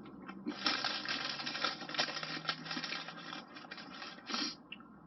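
Close-up chewing of crispy chips: a dense run of crunching crackles for a couple of seconds, then fewer, with one last short crunch near the end.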